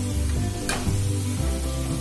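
Background music with steady bass notes, over the sizzle of potato fries deep-frying in hot oil. One sharp click comes about a third of the way in.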